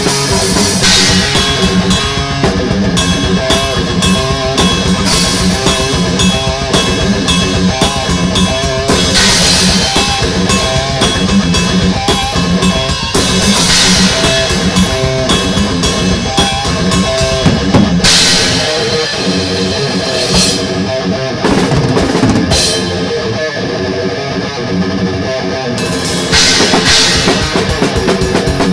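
Thrash metal song with a fast drum kit, heavy bass drum and distorted electric guitar. The cymbals drop out for a few seconds near the end, then the full band crashes back in.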